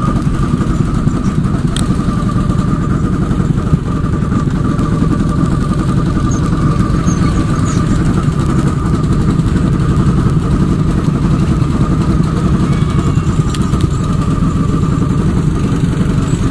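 Go-kart engine running steadily as the kart drives around the track: a low rumble with a steady high whine over it.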